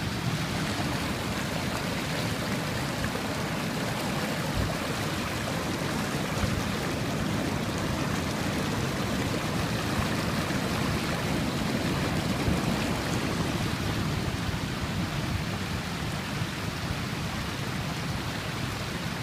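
Shallow seawater washing and streaming across a flooded street and over rocks, a steady rushing hiss: coastal flooding from a very high tide overtopping onto the road.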